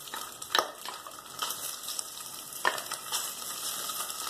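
Chopped bacon sizzling as it fries in hot oil in a stainless pot, stirred with a wooden spoon, with two sharp knocks.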